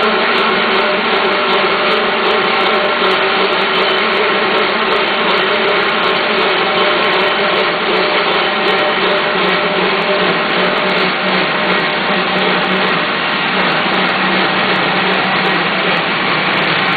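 Special-purpose milling machine running, its right-angle milling head's cutter spinning and cutting into the side wall of a casting. A loud, steady machine drone with several steady tones in it.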